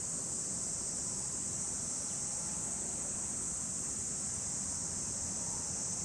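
A steady chorus of summer insects: one continuous high-pitched buzzing hiss with no breaks, over a faint low rumble.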